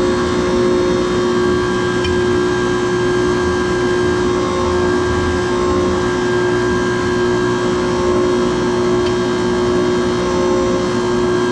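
Hydraulic forging press's pump unit running steadily with a constant hum and drone while the punch works a hot steel hammer billet.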